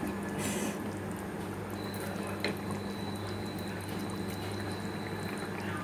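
Mustard-and-poppy-seed gravy with tangra fish simmering on low heat in a pan, a soft steady bubbling over a low steady hum.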